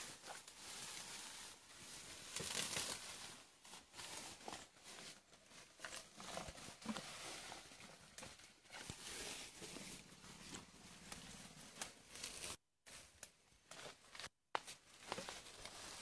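Asian elephant tearing and pulling up grass and leafy undergrowth with its trunk while feeding: irregular rustling, ripping and crackling of foliage. The sound cuts out twice, briefly, near the end.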